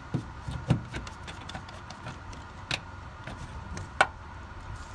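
A few dull thuds and a click as a 30-amp shore power plug is worked out of an RV's inlet, then about four seconds in one sharp click, the loudest sound: the WFCO T30 automatic transfer switch's relay switching over from lost shore power to the power bank.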